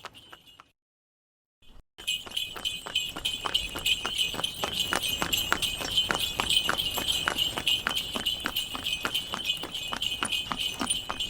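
Horse-drawn tanga on the move: the horse's hooves clip-clop in an even trot while the harness bells jingle steadily. It starts properly about two seconds in, after a brief broken stretch with silent gaps.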